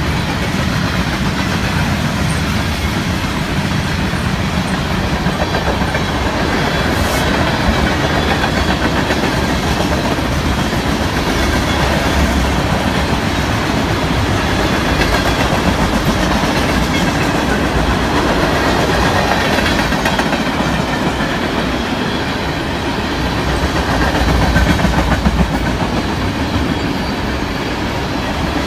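Freight train of tank cars and gondolas rolling past close by: the steady, continuous noise of steel wheels running on the rails, growing a little louder near the end.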